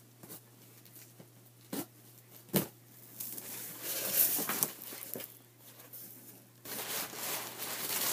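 A shipping package being opened by hand: a few sharp knocks and clicks, then bouts of tearing and crinkling packaging.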